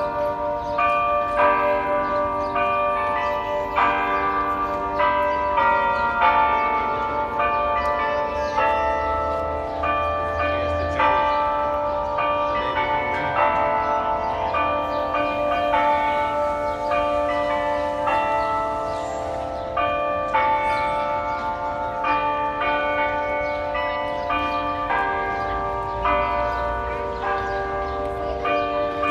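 Delacorte Clock's carillon bells playing its hourly tune: a continuous melody of struck bell notes, about two a second, each ringing on into the next.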